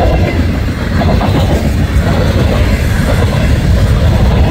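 Freight cars of a long manifest train (tank cars, a boxcar and covered hoppers) rolling past close by, their steel wheels making a loud, steady rumble and rattle on the rails.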